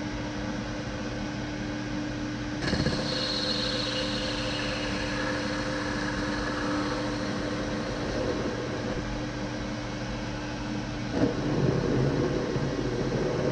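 Manual lathe spinning a stainless steel bar with a steady motor and gear hum; about two and a half seconds in a facing cut starts with a sudden rise in noise and a high cutting whine that fades over several seconds. A sharp click near eleven seconds, after which the hum changes.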